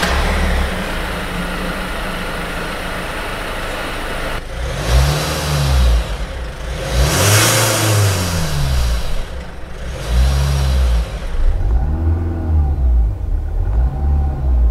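2024 Kia Sorento's 2.2-litre four-cylinder turbodiesel idling steadily, then blipped about five times from about four seconds in, each rev rising and falling in pitch.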